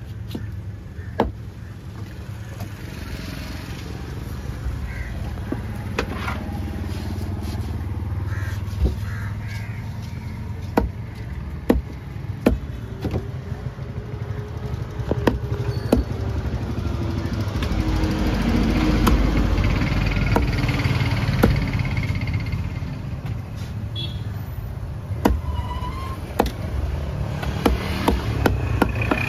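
Heavy curved chopper knife striking a wooden log chopping block as stingray is cut, sharp knocks at irregular intervals. Steady traffic rumble underneath, with a vehicle passing about two-thirds of the way through.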